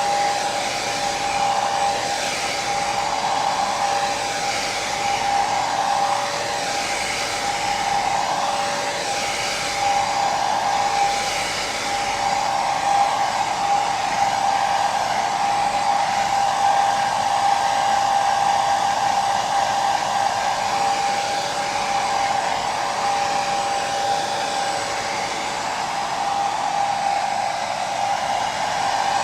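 Hair dryer running continuously: a steady airflow rush with a constant motor whine, used as white noise for sleep.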